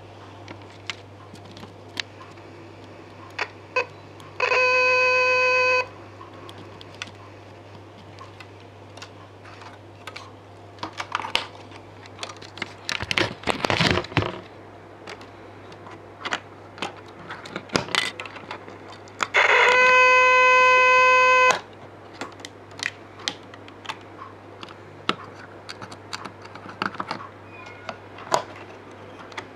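Simple home-built electronic tone generator sounding a steady, buzzy beep twice at the same pitch, first for about a second and later for about two seconds. Between the beeps come scattered clicks and taps of parts being handled, a brief rustle about 13 seconds in, and a steady low hum underneath.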